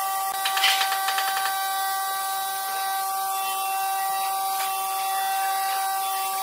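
Metal C-clamps clicking and rattling against a wooden tabletop as they are set and tightened, with a quick run of sharp clicks about half a second in, then a few faint taps. A steady high hum runs underneath throughout.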